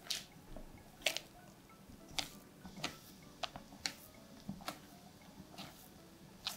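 Silicone spatula folding meringue into thick chocolate batter in a glass bowl: soft wet squelches and scrapes against the glass, about one stroke a second.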